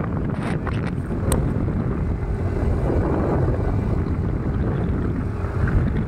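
Motorcycle riding along a paved road: steady engine and road noise mixed with wind buffeting the microphone.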